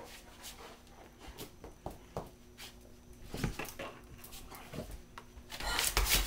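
A dog and a cat scuffling and rubbing against things: scattered light taps and rustles, with a louder burst of rustling near the end.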